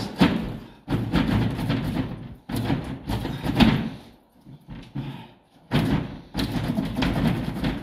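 Wooden top sash of a sash and case window being jerked and forced in its frame: a run of knocks, bangs and rattling scrapes as the sash, painted shut, breaks loose and starts to slide, with a short pause about halfway through.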